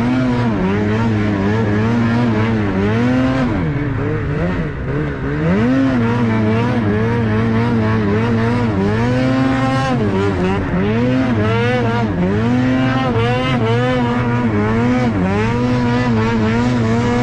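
Snowmobile engine under way, its pitch climbing and dropping again and again as the throttle is opened and eased off.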